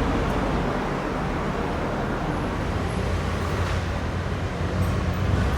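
Street traffic ambience: a steady wash of vehicle noise, with a low engine rumble that grows louder near the end.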